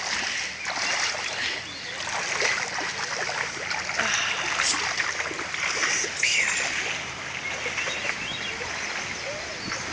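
Creek water splashing and sloshing around legs wading through a shallow stream, over the steady rush of the running water.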